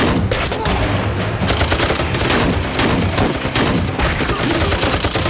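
Heavy gunfire: rifles and pistols firing together in rapid, overlapping shots with no pause.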